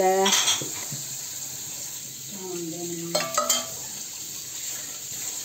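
Hot, just-baked tel kadayıf (shredded-pastry dessert) sizzling steadily in its pan as cold sugar syrup is poured over it and soaks in.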